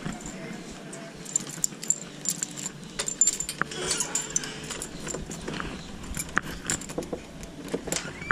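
A bunch of keys jangling, with many irregular clicks and high metallic jingles as a key is worked into a front-door lock.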